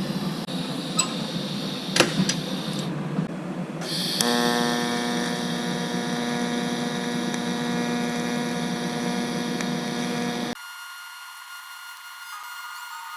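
Welding machine and torch running with a steady hum and hiss and a few sharp clicks; the arc stops about three seconds in and starts again about a second later. Near the end the sound drops abruptly to a quieter, thinner one.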